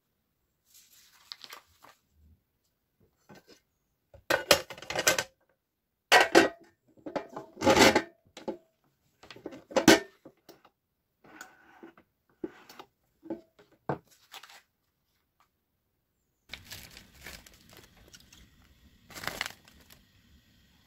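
Handling noise from a mini electric grill and its packaging: several loud bursts of rustling and crinkling with knocks of the lid against the grill body, then scattered clicks. Near the end a faint steady low hum comes in under another rustle.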